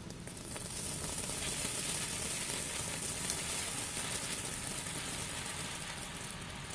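An 'Ocean Waves' ground firework burning, spraying sparks with a steady, high hiss and fine crackle that swells about half a second in.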